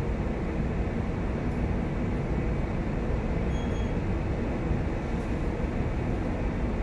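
Steady low rumble aboard a large chemical tanker underway: the ship's engine and machinery running, with an even noise that does not change.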